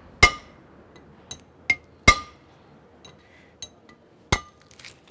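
Hammer tapping a metal drift to drive the bearing-fitted end plate of a MEC 8000 rotary vane vacuum pump onto its rotor shaft, done by hand without a press. About five sharp metal-on-metal taps, irregularly spaced, each with a short ring.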